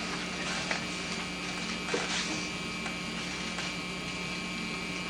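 Steady electrical hum and hiss of an old camcorder tape recording in a quiet classroom, with a few faint small knocks.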